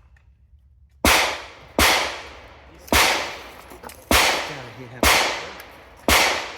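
Gunshots: six sharp reports roughly a second apart, starting about a second in, each followed by a short fading echo.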